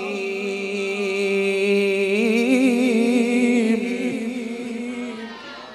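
A male Quran reciter (qari) holding one long melodic note in tilawat, the drawn-out close of a verse, its pitch wavering in ornaments through the middle before it fades out near the end.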